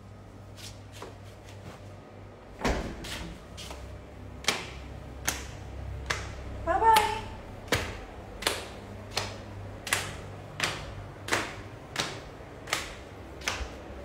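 Footsteps on a hard floor, an even walking pace of a little over one step a second, starting about three seconds in. A brief rising squeak about halfway through is the loudest sound.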